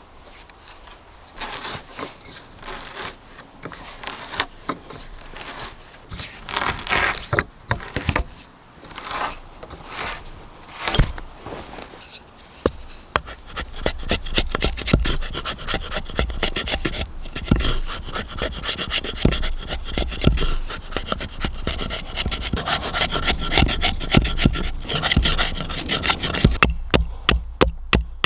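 A hand tool working wood in repeated rasping strokes, irregular at first and then fast and steady from about halfway, ending in a few sharper clicks.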